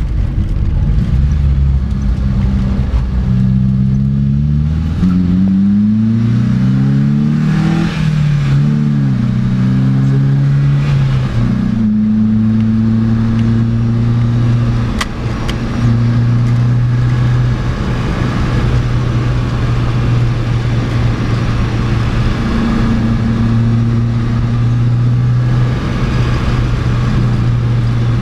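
Secma F16 sports car's engine heard from the cockpit, accelerating through several gear changes, the pitch climbing and dropping back at each shift. After about twelve seconds it holds steady at high revs, with brief lifts of the throttle, over rushing wind and road noise.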